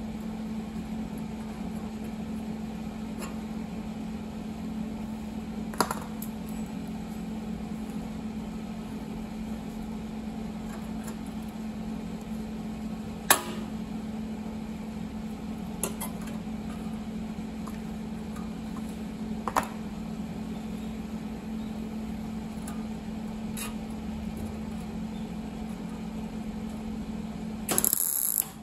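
A steady machine hum with a few scattered sharp clicks and knocks, and a brief loud hissing burst near the end.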